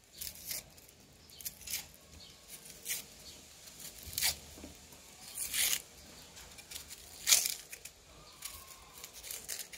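Small knife peeling an onion: the dry, papery skin tearing and crackling off in short scrapes, about half a dozen of them, the sharpest about three-quarters of the way through.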